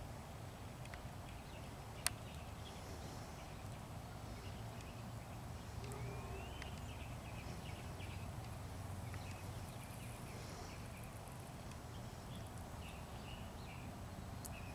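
Quiet outdoor background: a steady low rumble with faint, scattered high chirps and one sharp click about two seconds in.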